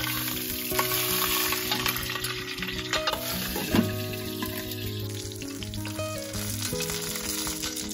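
Pork knuckles frying in hot oil in a pan, a steady sizzle, with one sharp clank a little under four seconds in as the glass lid is handled. Soft background music with held notes runs underneath.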